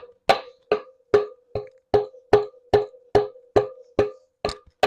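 Steady tapping on e-bike hub motor parts, about two and a half strikes a second, each with a short metallic ring, while the motor core is being worked back into place.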